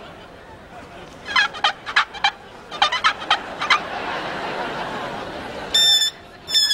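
Gobbling like a turkey's, in several quick warbling bursts, followed near the end by a high, wavering held tone.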